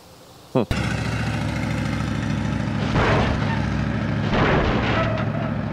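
Car engine running with a deep, steady rumble, swelling twice, about three and four and a half seconds in, then fading out near the end.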